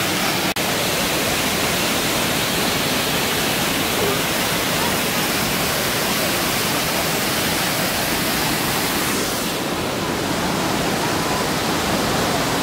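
Waterfall: a steady rush of falling water close by. The sound drops out for an instant about half a second in, and it turns a little duller about three quarters of the way through.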